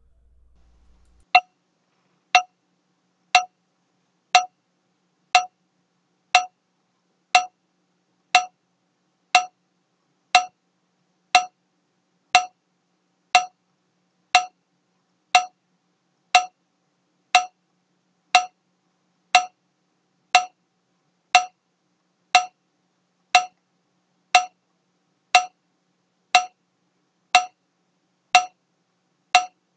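Metronome ticking at 60 beats per minute, one short pitched click each second, starting about a second and a half in. It counts off the seconds of the hold and the slow lift.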